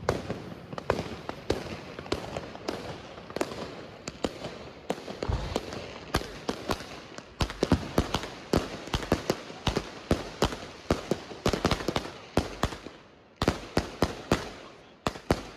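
A 1-inch firework cake (Volt 'Final Gold') firing a long volley of shots: a string of sharp launch thumps and bursting reports, fairly spaced at first, then coming thick and fast and louder from about seven seconds in.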